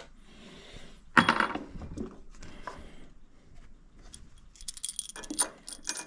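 Small metal parts clinking: one sharp, ringing metallic knock about a second in, then a run of light metallic rattles and clinks near the end.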